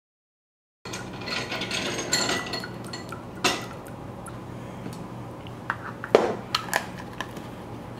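Pink lemonade pouring into a gallon plastic jug of water, with plastic clicks and knocks from the bottles being handled; the sharpest knocks come about three and a half and six seconds in.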